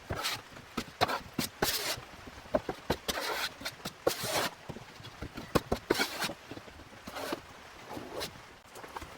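A spreader scraping fiberglass body filler (bondo), mixed with hardener and worked onto a composite panel, in about eight short, separate strokes.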